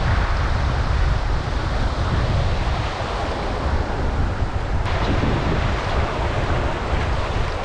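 Small waves washing through the shallows at a beach, with strong wind buffeting the GoPro's microphone as a steady low rumble.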